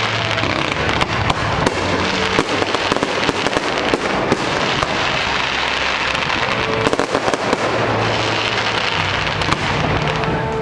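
Aerial fireworks going off: a dense, continuous crackle packed with many sharp pops and bangs.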